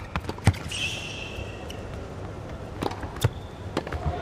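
Tennis rally on a hard court: sharp knocks of racket strikes and ball bounces, several in quick succession, with a shoe squeak about a second in.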